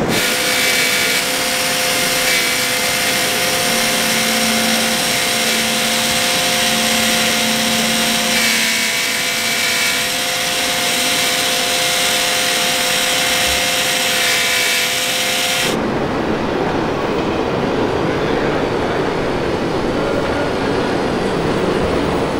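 Small electric motors and gearing of RC model farm machines whining steadily over a constant hiss. About 16 seconds in, the sound changes abruptly to a lower, duller hum.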